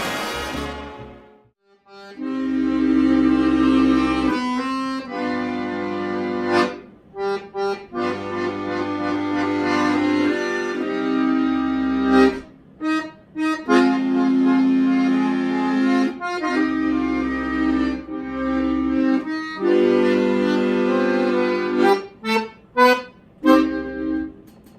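Background music: held chords over a bass line. It starts about two seconds in after a brief silence, with short clipped chord hits in the middle and near the end.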